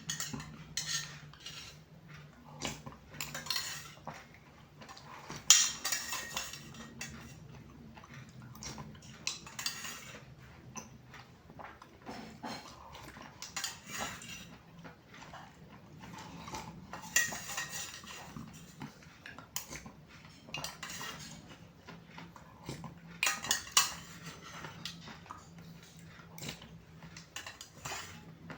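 A spoon clinking and scraping irregularly in a glass of iced nata de coco drink, with eating sounds between the clinks. A faint steady low hum runs underneath.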